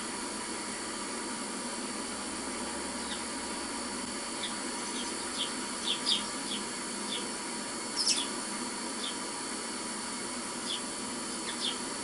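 Sparrows chirping, heard through a television's speaker over a steady hiss. Short, separate chirps start a few seconds in and come irregularly, with the loudest about two thirds of the way through.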